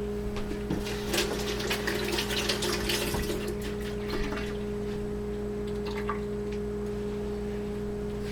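Wet, crackly squelching of a spatula working through foamy whipped egg-white batter, busiest in the first half and fading after about four seconds, over a steady low hum.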